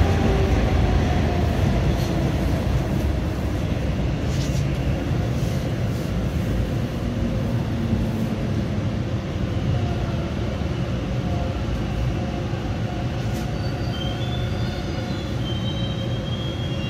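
Interior of a TTC Line 2 subway car slowing into a station: steady rumble and running noise, with a motor whine that falls in pitch as the train brakes. Faint high squeals come in near the end as it draws to a stop.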